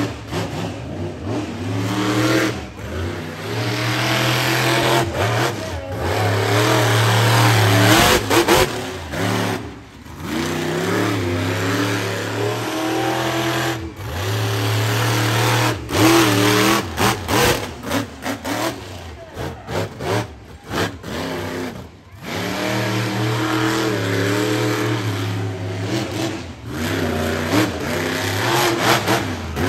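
Monster truck engine revving hard in repeated surges, its pitch climbing and falling as the truck drives the dirt course, with several sudden cut-offs where the throttle is lifted.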